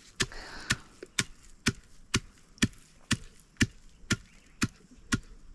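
Pestle pounding roasted coffee beans in a mortar, steady strokes about two a second, each a sharp knock with a low thud, crushing the beans toward powder.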